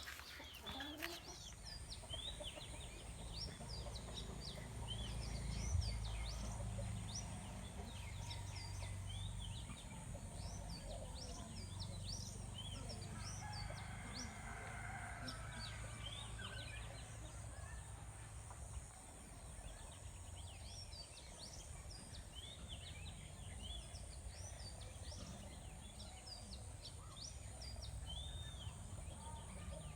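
Chickens calling: many short, high chirps throughout, over a steady low rumble.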